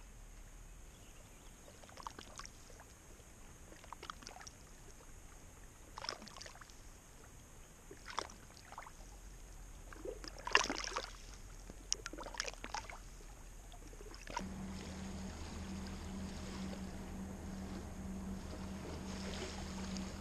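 Small waves lapping and splashing on a gravel lake shore, a short splash every second or two. About two-thirds of the way through it gives way to a steady low hum with wind noise.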